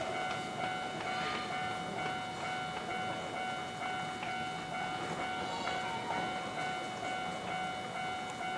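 Railroad crossing warning alarm ringing steadily, one held tone with overtones above it.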